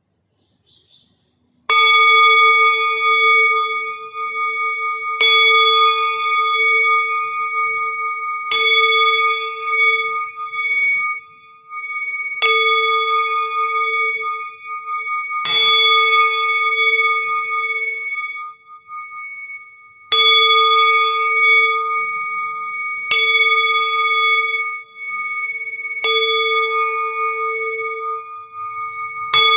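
Metal singing bowl struck about every three to four seconds, nine strikes in all. Each strike rings on in a long, steady, layered tone that overlaps the next one.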